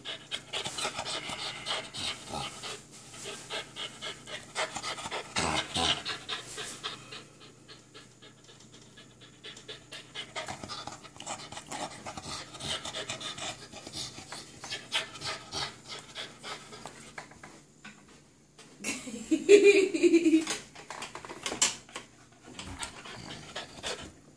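American Bully puppy panting hard and fast while tugging on a rope toy, with a short vocal sound, the loudest moment, about twenty seconds in.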